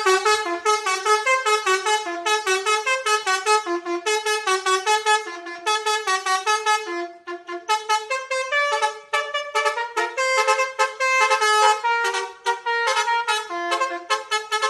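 Basuri "telolet" bus horn playing a fast melody of short, bright notes that change several times a second, with a slight lull about seven seconds in before the tune carries on.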